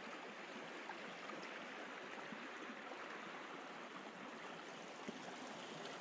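Shallow river running over a sandy, stony bed: faint, steady sound of flowing water.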